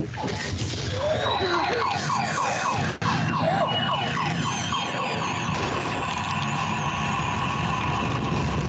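A loud, layered soundtrack of siren-like wailing tones over noise: a fast repeating warble of pitch sweeps in the first half, then long steady high tones, all stopping abruptly at the end. It is a simulation of the sensory overload an autistic child feels in a busy mall.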